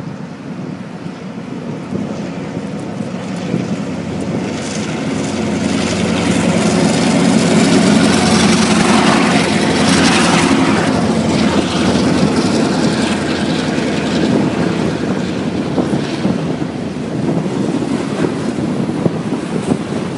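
EMD GP38-2 diesel locomotives passing close underneath, their engines' rumble building to its loudest about eight to ten seconds in and then easing as the freight cars roll by. Wind noise on the microphone.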